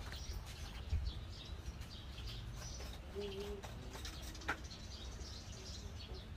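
Small birds chirping, with one low dove coo about three seconds in. A low thump comes about a second in, and a sharp click about four and a half seconds in.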